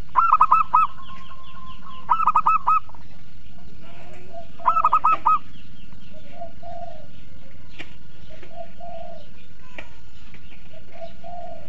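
Zebra dove (perkutut) cooing: three short phrases of quick staccato notes, each under a second and about two seconds apart, in the first half, followed by fainter, lower calls.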